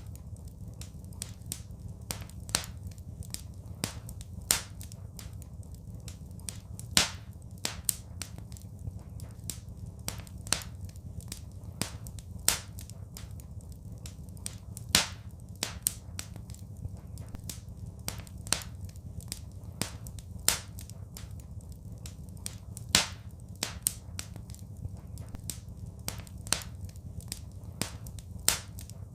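Wood fire crackling in a fireplace: frequent sharp pops and snaps, a few of them louder, over a steady low rumble.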